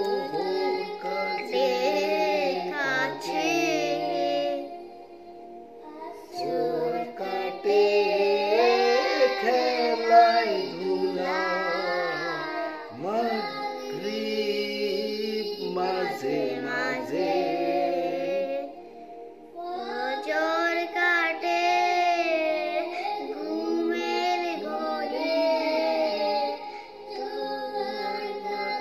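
A boy and a man singing a Bengali Islamic gojol together, unaccompanied, in long sung phrases with short breaks for breath about five and nineteen seconds in.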